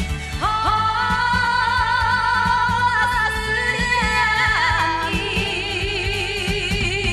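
Pop song playback: a long held note slides up about half a second in and holds for about four seconds before falling away, then a wavering melody line with vibrato takes over over a steady accompaniment.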